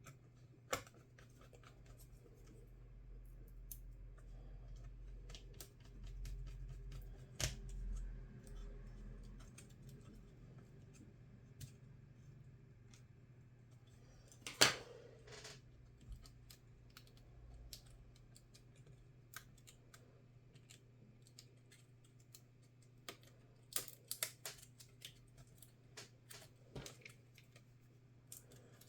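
Scattered small clicks and taps of hands working on a laptop, with one sharper click about 15 seconds in and a quick run of clicks near the end, over a steady low hum.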